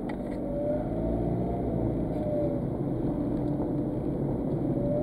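Road and engine noise of a moving car heard inside the cabin: a steady low rumble and hiss, with a faint whine that rises and falls, twice.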